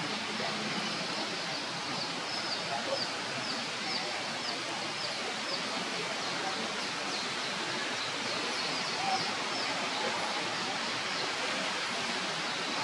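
Steady rain falling on forest foliage, an even hiss. Over it, short high falling chirps repeat about twice a second.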